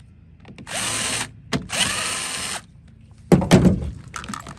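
Cordless drill/driver backing out screws, in two short runs of about a second each, each one spinning up as the trigger is pulled. About three seconds in comes a loud clunk, followed by light clicks and rattles.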